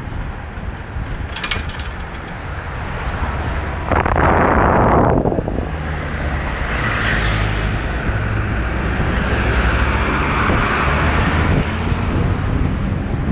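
Motorcycle engine running steadily while riding, with wind rushing over the microphone. About four seconds in, a louder rush of noise lasts for about a second.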